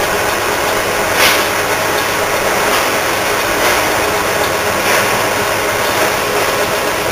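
Metal lathe running steadily with a long steel lathe feed shaft spinning in it while the shaft is trued up.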